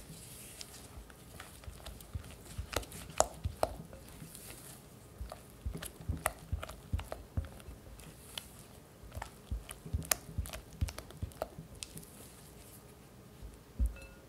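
Silicone spatula mixing cream cheese with sugar and corn starch in a glass bowl: irregular soft clicks, squishes and scrapes as the spatula presses the paste against the glass. One heavier knock comes near the end.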